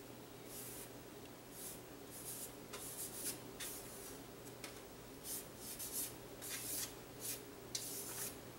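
Faint, irregular short scrapes and rubs of a laptop's plastic bottom cover being handled, over a low steady hum.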